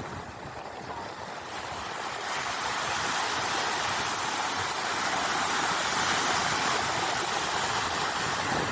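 Sea waves rushing, a steady wash of surf that swells louder over the first few seconds and then holds.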